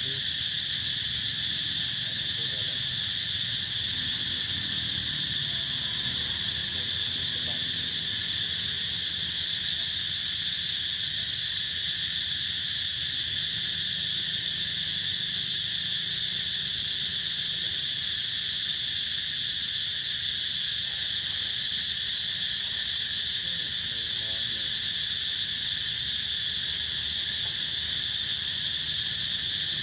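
A steady insect chorus: a continuous high drone held at several fixed pitches, unchanging throughout.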